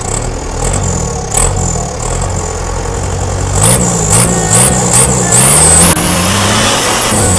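Modified Mitsubishi Canter drag truck's diesel engine with a new exhaust: running, then blipped several times in quick succession from about halfway through, then held at high revs near the end.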